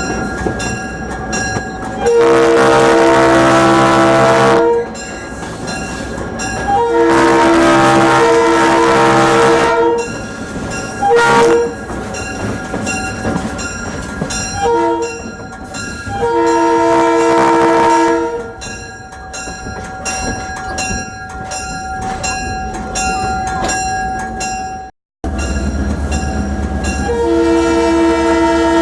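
Diesel locomotive air horn, a Leslie RS3L chime, blowing a series of blasts: two long, a short, another short, then a long, the grade-crossing warning, followed after a break by another long blast near the end. Between blasts the train's running rumble and rail noise carry on.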